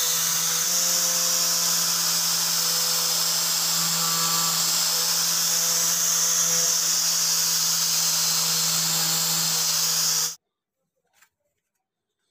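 Angle grinder with a wire cup brush running steadily against a rusty steel cleaver blade, scouring off the rust with a constant hum and a strong hiss. It cuts off suddenly near the end, leaving near silence with two faint clicks.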